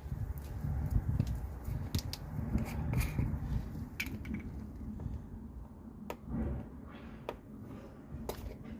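Scattered light clicks and taps of plastic being handled as a funnel is settled into the motorcycle's oil filler and the oil container is readied, over a low rumble.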